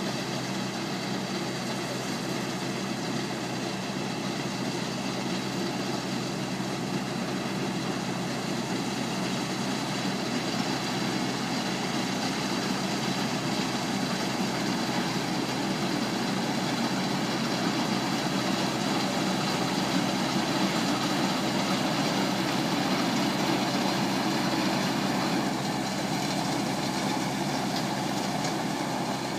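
Rice combine harvester running steadily, its engine and machinery making a continuous mechanical drone with a held hum.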